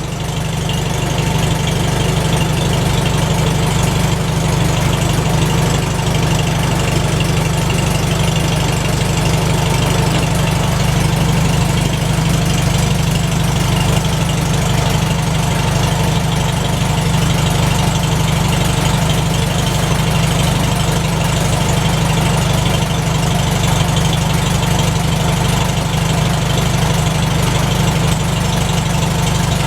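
McCormick-Deering W-4 tractor's four-cylinder engine running steadily with an even low throb, freshly started after sitting unused since the previous autumn.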